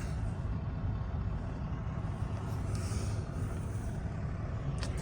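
Steady low rumble of a running vehicle, with no breaks.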